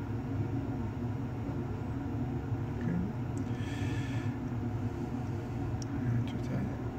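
Steady low machine hum of room equipment, with one short hiss about three and a half seconds in.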